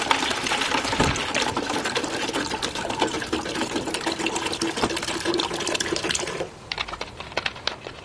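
Green-water (chlorella) culture pouring out of an upturned plastic bottle into a clear plastic bottle, a steady filling pour that stops about six and a half seconds in. A few light clicks follow near the end.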